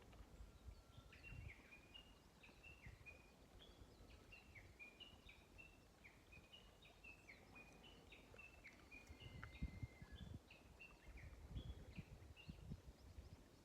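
A songbird singing faintly, a long unbroken run of short chirping notes, with low rumbling thumps underneath.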